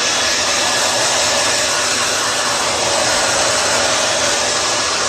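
Handheld hair dryer running steadily, its airflow blowing over a puppy's damp fur.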